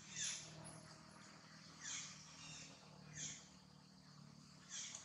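Four short, high calls, each falling in pitch, about a second and a half apart, from an animal, over a faint steady low hum.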